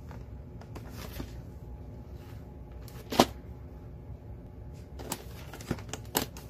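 Plastic VHS clamshell case being handled and turned over on carpet: a few sharp clicks and knocks, the loudest about three seconds in and several more between five and six seconds, over a steady low hum.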